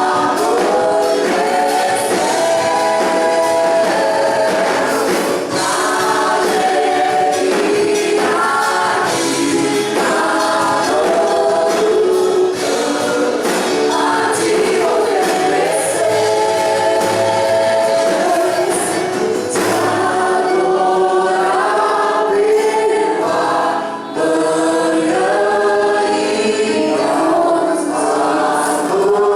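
Church worship team singing a gospel worship song together in chorus, with music accompanying them.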